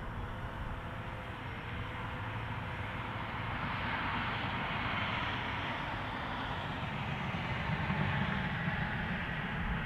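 Quadcopter drone's propellers buzzing in flight, growing louder from about a third of the way in as it comes closer.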